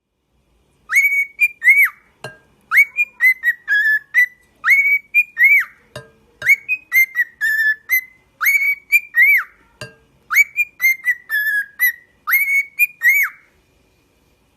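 Pet parrot whistling the same short tune over and over, a phrase of several rising and falling notes repeated seven times about every two seconds, with three sharp taps between phrases.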